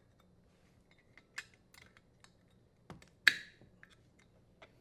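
Scattered light clicks and taps of small metal parts and a hand tool, with one sharper click about three seconds in. This is the strain relief nut being threaded and tightened on a dishwasher's electrical terminal box.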